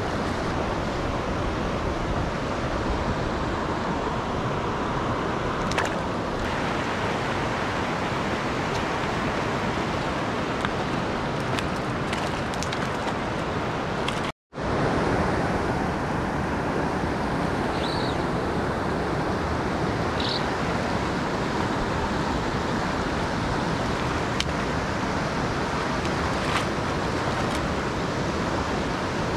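Fast, shallow mountain stream rushing over rocks close to the microphone, a steady wash of water noise. It cuts out for an instant about halfway through.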